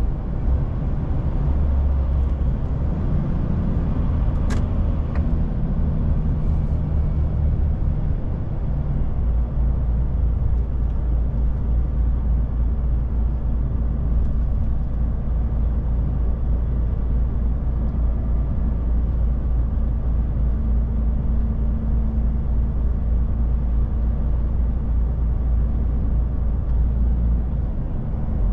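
DAF truck's diesel engine running steadily on the road, a low drone with road noise; the engine note shifts about eight seconds in. A single sharp click sounds about four and a half seconds in.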